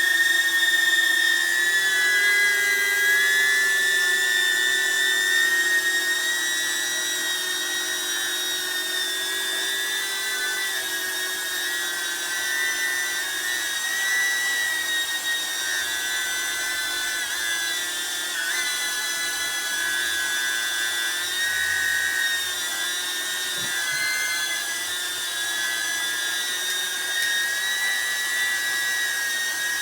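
DJI Neo mini quadcopter's motors and GEMFAN D51 ducted propellers whining in flight: a high, steady buzzing whine whose pitch wavers up and down as the motors adjust speed, a little louder in the first few seconds.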